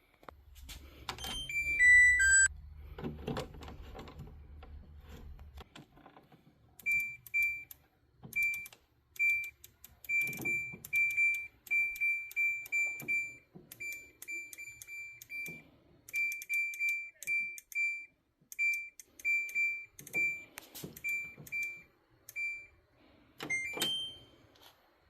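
Kenmore front-load washing machine's control panel: a falling three-note chime, then a long run of short high beeps with small clicks as the cycle-selector knob is turned step by step, and a rising two-note beep near the end. The knob registering each step is the test of whether the knob fault has been cured.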